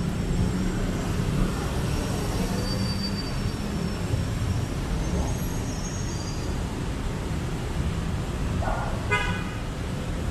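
Steady city road-traffic rumble with a short vehicle horn toot near the end.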